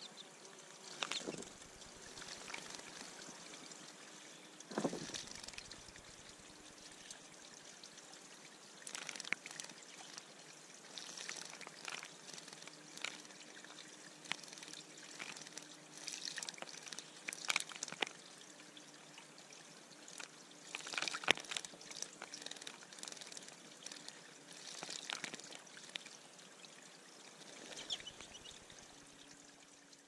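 Small songbird bathing in a shallow pebble-bottomed bird pond, splashing in short spurts every few seconds over a steady trickle of water.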